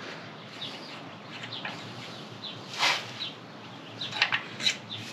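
Faint handling noise from the generator engine's oil-fill dipstick cap being unscrewed and pulled to check the oil. A few short scrapes, squeaks and clicks, the strongest about three seconds in and a quick cluster after four seconds.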